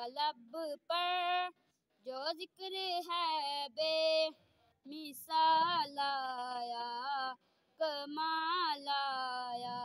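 A boy's voice singing a naat, Urdu devotional poetry in praise of the Prophet, unaccompanied: long held notes that waver in pitch, in phrases separated by short pauses.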